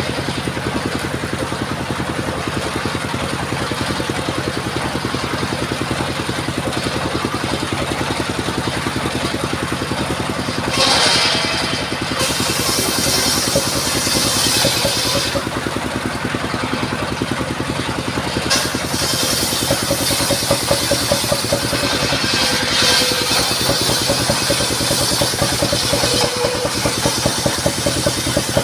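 Engine-driven circular sawmill running steadily. About 11 seconds in the blade bites into a sengon log with a sharp burst of high noise, cuts for a few seconds, and cuts again from about 19 seconds on, the high whine of the blade in the wood riding over the engine.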